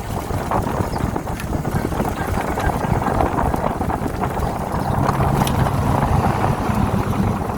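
A solar electric trike riding along: wind buffets the microphone over steady road and drivetrain noise. A low hum comes in about five seconds in.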